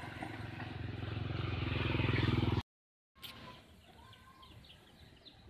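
A vehicle engine running with an even pulsing buzz, growing louder, then cut off suddenly about two and a half seconds in. After it, quiet outdoor ambience with short bird chirps.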